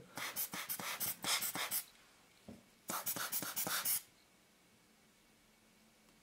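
Hand bulb air blower squeezed in quick succession, blowing short puffs of air to clear dust and hair from a lens element. It goes in two runs of rapid puffs: one about two seconds long, then a shorter one a second later.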